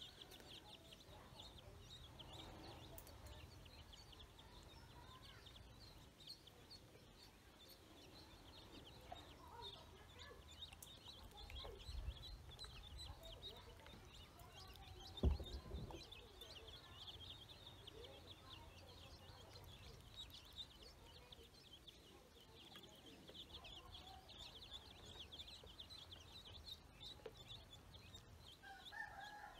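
Faint, constant high peeping from a group of ducklings and young chicks, with a lower call near the end. A single low thump, the loudest sound, comes about halfway through.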